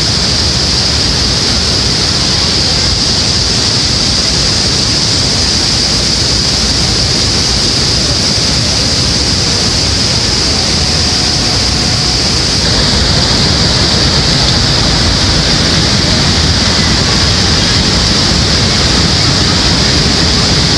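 Niagara's Bridal Veil Falls close by: a loud, steady roar of falling water that gets a little louder about two-thirds of the way in.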